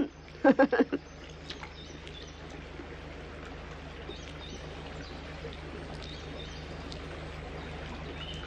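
Outdoor ambience: a steady hiss of running water with faint, scattered bird chirps over it, and a low steady hum underneath.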